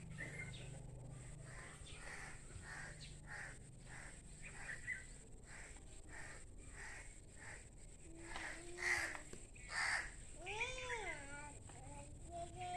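Crows cawing over and over, about twice a second, with a few louder caws near the end. Late in the stretch comes one drawn-out call that rises then falls in pitch.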